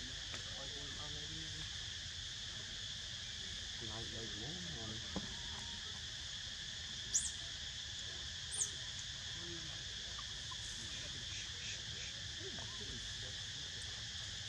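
A steady chorus of insects droning in the trees, with two short high chirps about halfway through.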